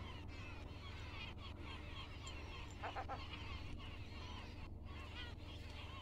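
Many birds chirping and twittering together, with a short run of about four quick, harsher calls about three seconds in. A steady low hum lies underneath.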